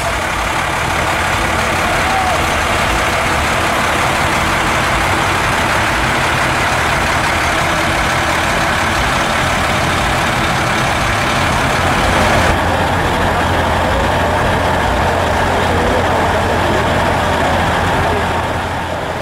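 Heavy diesel engines of a school bus and trucks idling with a steady low rumble, with faint voices in the background. The sound turns duller about twelve seconds in.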